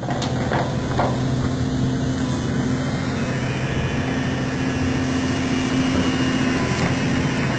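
An engine running steadily at idle, a low even hum, with a couple of faint clicks in the first second.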